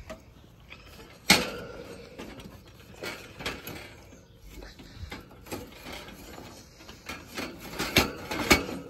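Metal clanking and scraping on grill grates as they are cleaned, with one sharp clank about a second in and scattered lighter clinks after it.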